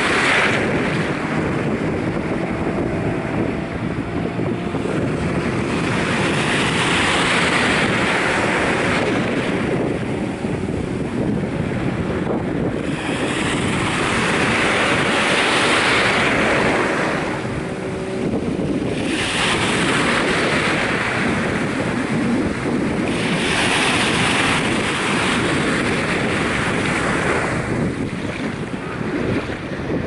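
Small ocean waves washing in over sandy shallows at the shoreline, the surf swelling and fading every few seconds, with wind buffeting the microphone.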